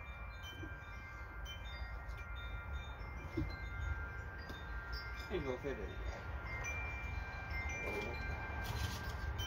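Light chime-like ringing: clear tones at several pitches overlapping and dying away slowly, over a steady low rumble, with two short squeaky wavering sounds in the second half.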